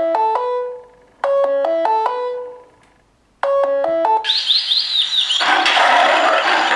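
Samsung Galaxy tablet stock ringtones: a short, quick run of pitched notes plays three times with brief pauses, then about four seconds in another ringtone starts with quick chirping slides and turns into a dense, busy wash of sound.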